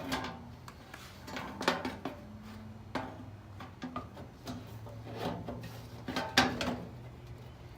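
Sheet-metal access doors of an HVAC unit being set back onto the cabinet: a run of metallic knocks, clatters and scrapes, the loudest about six seconds in.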